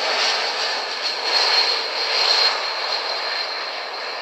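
Airbus A220-300's Pratt & Whitney PW1500G geared turbofan engines on landing approach: a steady jet rush with a high whine over it. The whine drops slightly in pitch, and the sound fades over the last second or two as the aircraft moves away.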